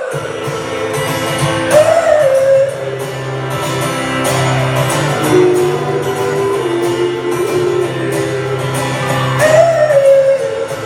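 Live indie-folk band playing an instrumental passage: guitars and a steady bass over a regular drum beat, with a melodic line swelling up twice.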